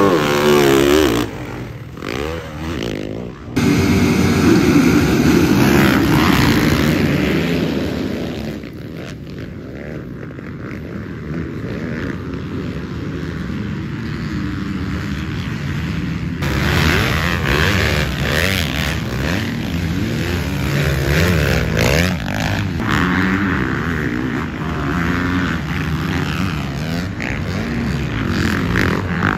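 Several motocross dirt bike engines revving hard and rising and falling in pitch as they race. The sound changes abruptly twice where clips are cut together.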